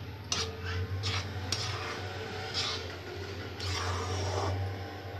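Spatula scraping and stirring thick semolina upma around a kadai, in several irregular strokes over a low steady hum.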